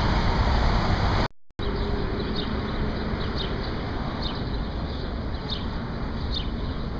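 Steady city traffic noise, broken by a short gap about a second in. After that comes a quieter steady street background, with small birds giving scattered short, high chirps.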